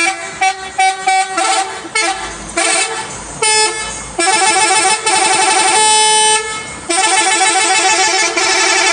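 Bus 'telolet' musical air horn playing a melody of several notes with fast warbling trills. It starts as short separate blasts, then from about halfway runs on in longer stretches with one held note.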